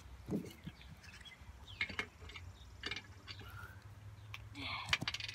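Faint scattered clicks and taps of plastic cups and wooden stirring sticks, with a few short bird chirps in the background; the loudest cluster of clicks comes near the end.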